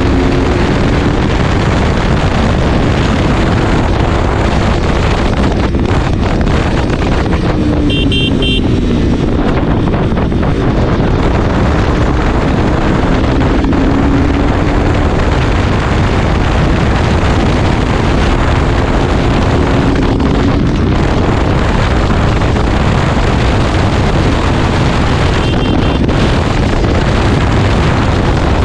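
KTM RC 200's single-cylinder engine running at road speed, mostly buried under heavy wind noise on the microphone, its pitch falling and rising several times with throttle and gear changes. A short high beep sounds about eight seconds in and a fainter one near the end.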